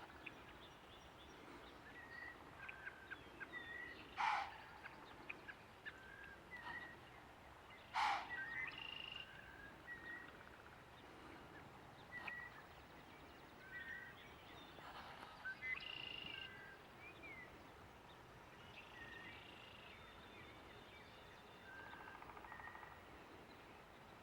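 Deer snort-wheeze: two loud, sharp blasts of air about four seconds apart, the second trailing off into a quick run of softer puffs. Small birds chirp and sing throughout.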